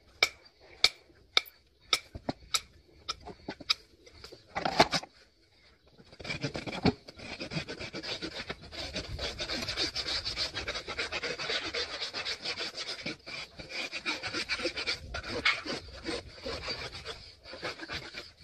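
A hoof is worked with a hand tool, giving a run of short sharp clicks about twice a second. From about six seconds in, a farrier's rasp files across the hoof in steady, quick scraping strokes.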